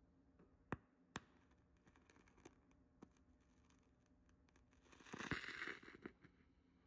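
Near silence, broken by two sharp clicks about a second in and a short scratchy rustle near the end.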